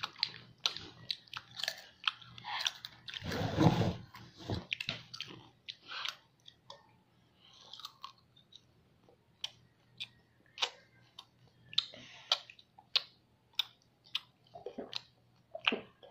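Close-up chewing and biting of crunchy food, with sharp, irregular crunches throughout and a longer, louder burst of noise about three and a half seconds in.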